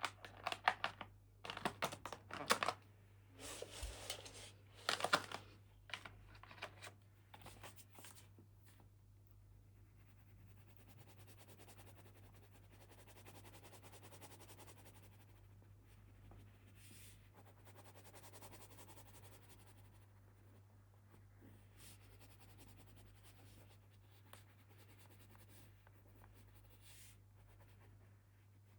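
Toy packaging being torn open and crinkled by hand in a quick run of sharp crackles over the first several seconds, then faint rustling and handling over a steady low hum.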